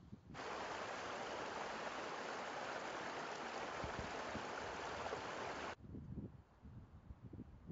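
Shallow mountain stream rushing over rocks between snowbanks: a steady hiss of running water that starts abruptly just after the start and cuts off sharply about five and a half seconds later. Before and after it there is only a low, uneven rumble.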